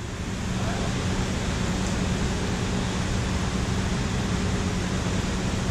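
Steady rushing of water pouring over a low concrete dam spillway into the pool below.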